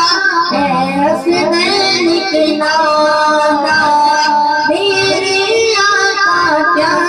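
A boy singing a naat, a devotional poem in praise of the Prophet, into a microphone in a high voice, with long held notes and sliding ornaments.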